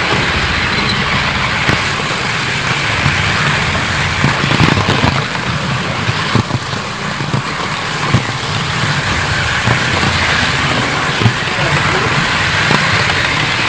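Model trains running on a layout: a steady rolling and motor hum with short clicks scattered through it.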